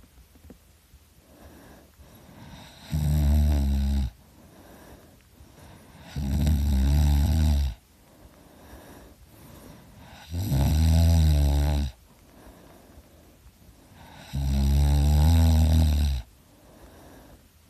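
A sleeping man snoring heavily: four long, loud snores about four seconds apart, each lasting one to two seconds, with much quieter breaths between.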